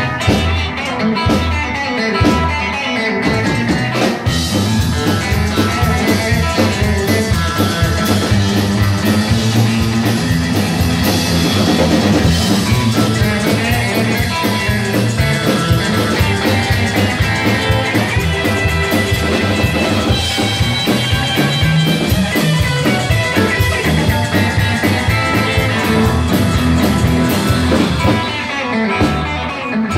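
Live rockabilly band playing, guitar over a drum kit, with no singing.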